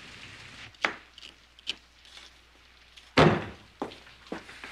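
Steady rain hiss that cuts off about a second in. Then a few light knocks of a knife chopping on a cutting board, and one louder thud of a door shutting about three seconds in.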